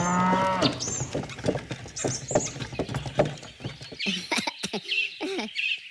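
Hooves clip-clopping in an irregular run of knocks, after a short pitched animal call at the start; high chirping calls come in near the end.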